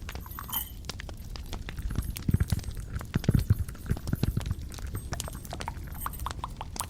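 Close-miked ASMR trigger sounds: a quick, irregular run of taps and clicks, with heavier low thumps from about two to four and a half seconds in.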